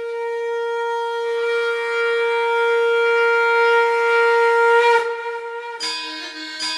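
Opening of a Bollywood song: a long held note on a wind instrument, joined by a second note about a second in and swelling for about five seconds. Near the end it breaks into a melody over sharp drum strokes.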